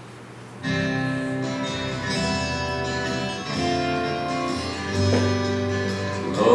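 Instrumental hymn introduction starting about half a second in: slow, sustained chords, a new one every second or so, leading into the communion hymn that is sung right after.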